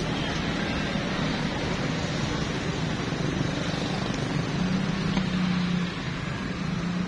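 A motor vehicle engine running steadily, with a low hum that swells slightly near the end, over general street noise.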